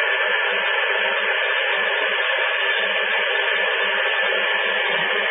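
Steady receiver static from a CRT SS 9900 CB radio tuned to 27.605 MHz single sideband while waiting for a reply: an even band hiss with a faint steady whistle running through it.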